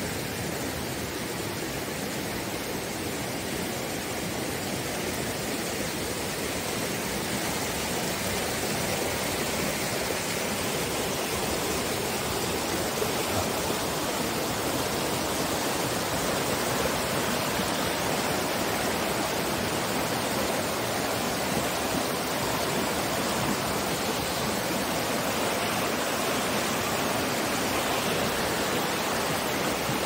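Mountain stream running high and fast over rocks and small cascades: a steady rush of water that grows a little louder over the first half.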